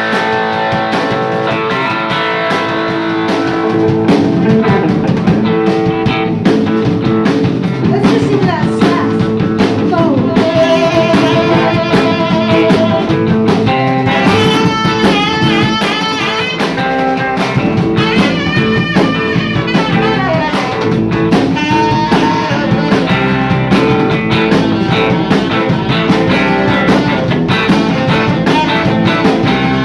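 A live rock band playing: electric guitars, electric bass, drum kit and saxophone. About halfway through, a high melodic line with a wavering pitch comes in over the band.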